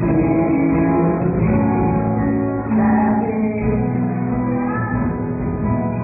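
A live band playing a song with singing and guitar.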